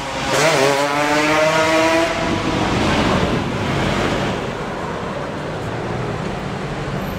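Bugatti Veyron Grand Sport's quad-turbo W16 engine starting up: it fires a moment in and flares, rising in pitch for a second or two. It then settles to a steady idle.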